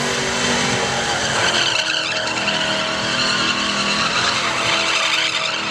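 Drift car sliding in circles: its engine held at high revs while the tires skid and squeal in a steady screech.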